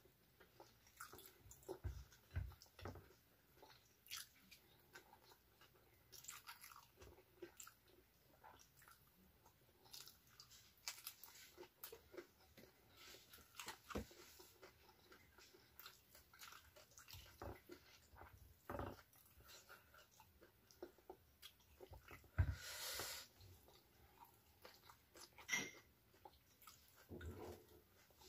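Close-up mukbang eating sounds: a person chewing and crunching a meal of rice with raw vegetables and sambal, eaten by hand. Irregular crunches and mouth clicks throughout, with one louder, longer crunch about three-quarters of the way through.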